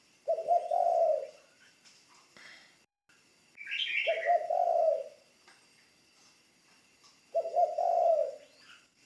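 Spotted dove cooing: three low coo phrases of about a second each, roughly three and a half seconds apart. A brief higher chirp sounds during the second phrase.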